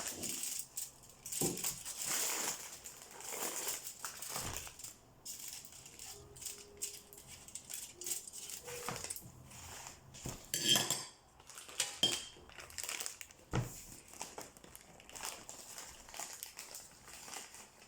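Kitchen utensils and dishes clinking and scraping, with scattered short knocks, as cookie dough is scooped and pressed onto a baking tray.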